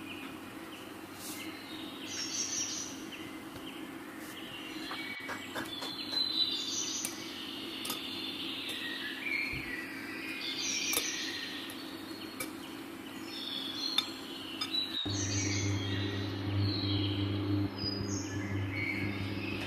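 Small birds chirping and singing, many short calls overlapping. About three-quarters of the way through, a low steady hum starts suddenly beneath them.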